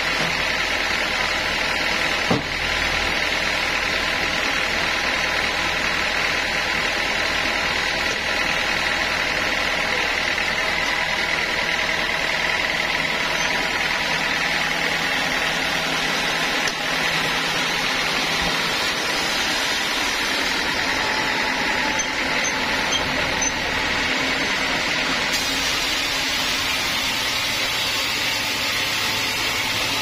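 Sawmill machinery running with a steady mechanical drone, with one sharp knock about two seconds in.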